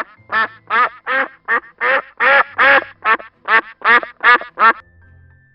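A duck quacking: a rapid series of about a dozen loud quacks, a little over two a second, that stops shortly before the end.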